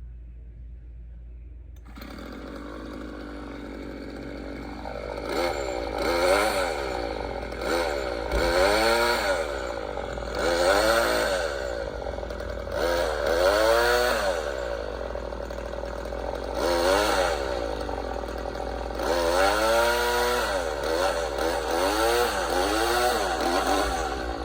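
A small engine running, revved up and let back down again and again, each rev a rise and fall in pitch a second or two long.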